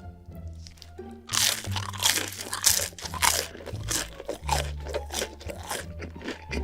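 Close-miked eating: crisp, loud crunching of food being bitten and chewed, starting about a second in, over background music with a steady bass line.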